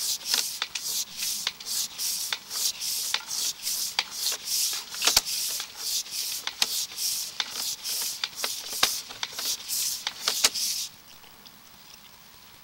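Sewer inspection camera's push cable being fed into the line in quick strokes, each a rasping rub, about two to three a second with a few sharp clicks among them. The strokes stop suddenly about 11 seconds in.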